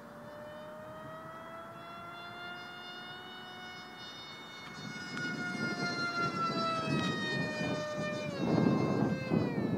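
Small RC model F-15K jet flying past, its fans giving a high-pitched whine that rises slowly, then falls steeply near the end as the model passes. Wind buffets the microphone through the second half.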